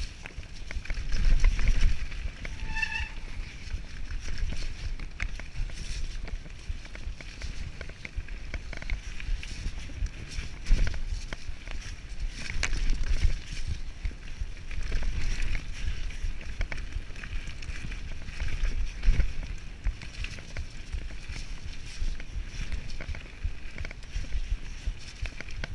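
Mountain bike riding fast down a rocky forest singletrack: the tyres rumble and crunch over stones, roots and leaves, and the bike rattles and knocks over the bumps, with wind buffeting the camera microphone in gusts. A short squeak comes about three seconds in.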